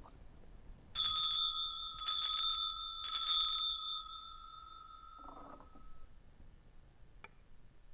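Altar bells rung three times, about a second apart, at the elevation of the chalice during the consecration. Each ring leaves high bell tones hanging, and the lowest tone dies away a couple of seconds after the last ring.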